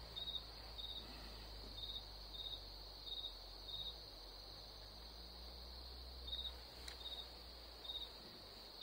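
Crickets chirping faintly: short high chirps repeating about every half second over a steady high trill, with a pause in the chirps midway through.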